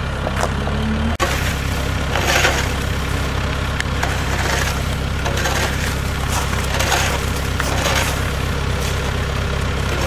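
Ice crust on a frozen grass pitch crunching and breaking in repeated bursts every second or so, over an engine running steadily with a low drone.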